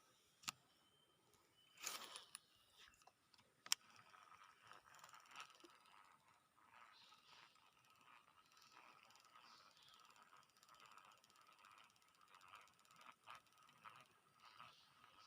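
Fishing reel being wound in: faint, fine mechanical ticking and whirring, after a few sharp clicks in the first four seconds.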